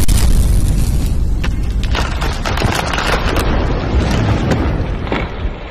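Loud, deep rumble with scattered crackles and knocks, fading away steadily.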